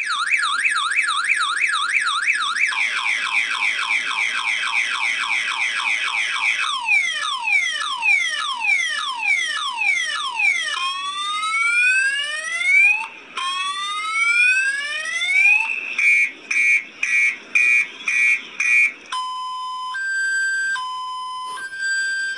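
Multi-tone car alarm siren cycling through its sounds: a fast warble, then quick repeating sweeps and slower rising whoops, then a run of short beeps, and near the end a steady two-tone high-low alternation.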